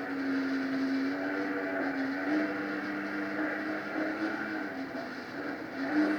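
Mini jet boat's engine running at a fairly steady speed, its pitch drifting up and down a little.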